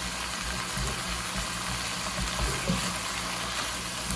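Seasoned chicken and taco meat sizzling in a pan with a little water: a steady hiss, with a light knock about two and a half seconds in.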